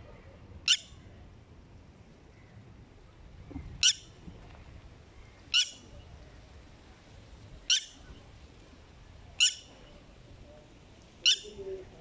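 Red-wattled lapwing giving six short, sharp alarm calls spaced about two seconds apart, a bird guarding its nest with an egg against an intruder.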